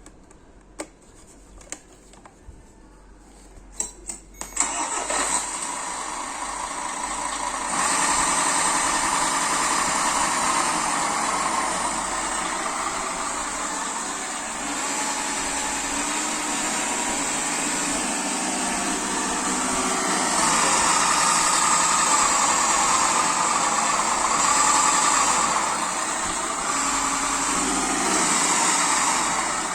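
Vehicle engine started after a few clicks, catching about four and a half seconds in and then running steadily, louder about eight seconds in and again from about twenty seconds; the engine is being recorded for an abnormal sound.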